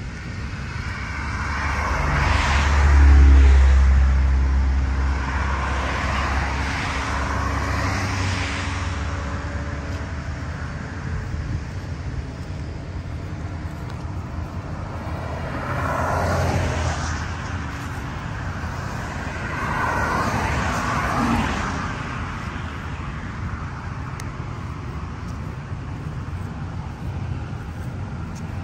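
Road traffic: cars passing one after another along a street, each swelling up and fading away, the loudest a few seconds in with a deep rumble, others around the middle and later.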